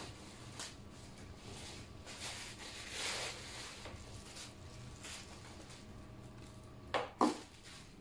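Plastic packaging rustling softly as it is handled and pulled off an air fryer, then two sharp knocks in quick succession near the end.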